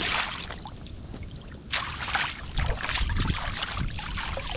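Shallow stream water splashing and sloshing as a wooden plate is dipped and rinsed in it, with louder splashes about two, two and a half and three seconds in.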